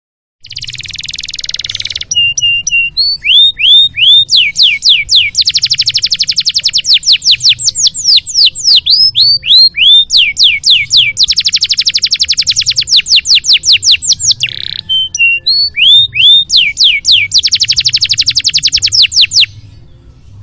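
Domestic canary singing a long, varied song: a short harsh rasp, then rapid trills alternating with repeated rising and falling whistled notes, over a faint low hum.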